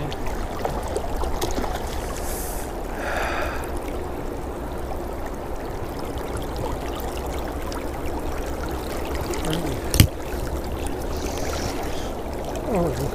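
River current flowing and gurgling steadily around a wading angler's legs, with a brief louder rush about three seconds in and a single sharp click about ten seconds in.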